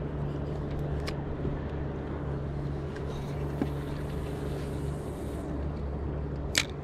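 Boat motor running with a steady low hum, and a single sharp click near the end.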